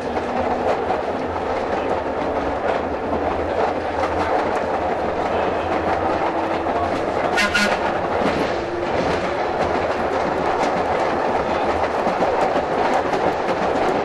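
Pacific Electric 'Hollywood' interurban streetcar running along the track, heard from inside just behind the motorman: a steady rumble broken by irregular clicks of rail joints. About seven and a half seconds in there is one short, high toot from the car's whistle.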